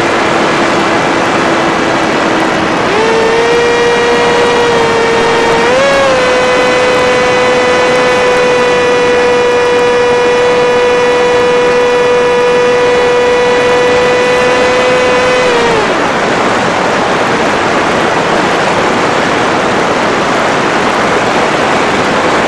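Electric motor and pusher propeller of a Skyfun FPV foam jet whining in flight over a steady rush of wind. The whine steps up in pitch about three seconds in and again near six seconds, holds steady, then drops away around sixteen seconds, leaving only the wind noise.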